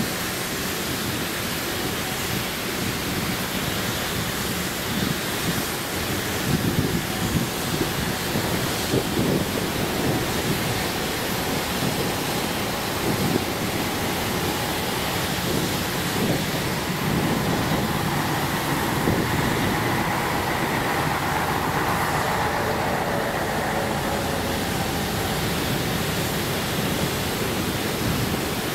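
71-911EM "Lvyonok" low-floor tram approaching on its rails: a steady rumble and hiss, with a few louder knocks between about six and ten seconds in, and a faint whine that falls in pitch past the middle.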